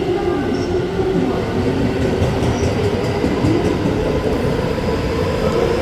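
Electric passenger train running, a steady rumble with a humming tone and faint clicks from the track.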